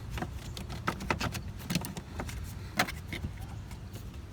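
Scattered light clicks and clinks of car parts or tools being handled, over a low steady rumble.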